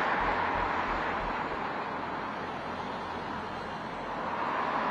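Steady outdoor road-traffic noise, easing slightly in the middle and swelling again near the end.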